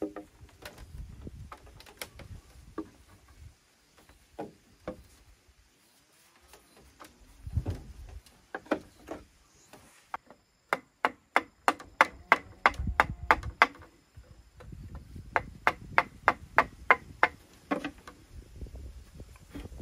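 A tool striking bamboo with sharp blows: a few scattered knocks, then a fast, even run of about four blows a second near the middle, and after a short pause a slower run of blows.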